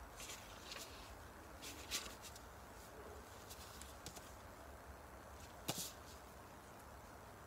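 Pages of a hardcover comic book being turned and handled: a few brief paper rustles and light taps over a quiet background, the sharpest one nearly six seconds in.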